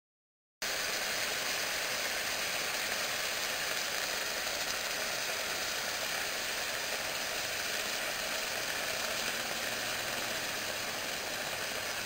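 Steady hiss and sizzle of steam as water boils off on molten aluminum in a crucible, starting abruptly about half a second in, with a small click just before it cuts off.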